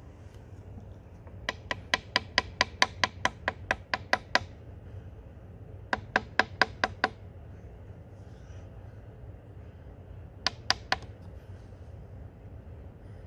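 Quick runs of sharp knocks or taps, about five a second: a run of about fourteen, then about seven, then three, over a steady low rumble.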